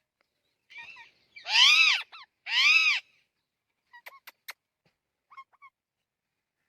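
Parrot calling: two loud squawks, each rising and then falling in pitch, about a second and a half and two and a half seconds in, with short soft chirps and clicks before and after.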